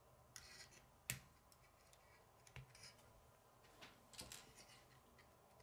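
Faint clicks and rustles of plastic K'nex rods and connectors being handled and snapped together, a handful of sharp clicks with the clearest about a second in.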